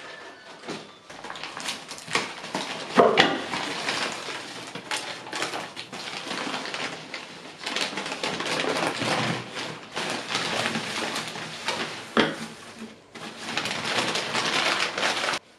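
Continuous rustling and scraping with many sharp clicks and knocks as household objects are handled, cutting off suddenly near the end.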